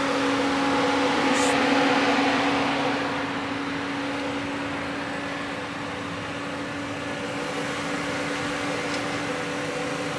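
Steady mechanical hum with one constant low tone, under a hiss that is louder for the first few seconds and then settles.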